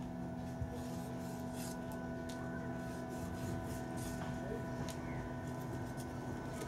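Short scrapes of a hand tool along a freshly cut cinnamon stick as its bark is worked off, coming at irregular intervals over a steady hum.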